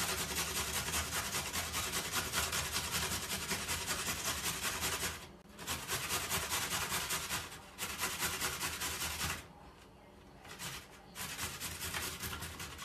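A fresh raw beetroot grated by hand on a metal box grater: rapid back-and-forth scraping strokes, with two short pauses and a longer one about three quarters of the way through before the grating picks up again, softer.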